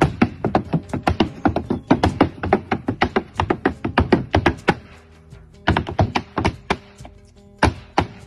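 Malambo zapateo: fast, sharp boot stamps and heel strikes on a stone slab, about seven a second, over backing music. About five seconds in, the footwork thins to a few single stamps while the music carries on.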